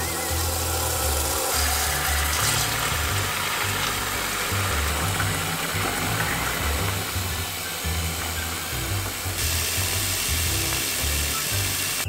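Tap water running hard into a plastic spin-mop bucket, a steady rushing splash, with floor cleaner being poured in.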